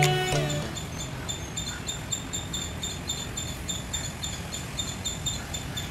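An insect chirping in short, high, evenly spaced pulses, about three a second, over a low rumble, while background music fades out in the first half second.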